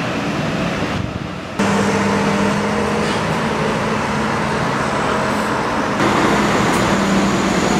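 McLaren 675LT Spider's twin-turbo V8 idling steadily, a little louder after about a second and a half.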